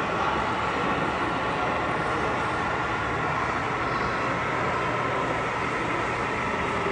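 A steady, even din of model trains running on the show's layouts, mixed with the general noise of a large hall.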